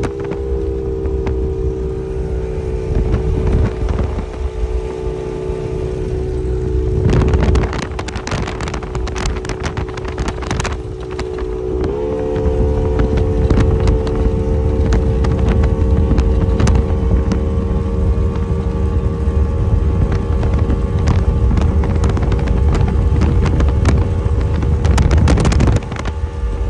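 Outboard motor on a small speedboat running at speed, a steady drone over a rush of wind and water; about twelve seconds in the engine note rises slightly and then holds.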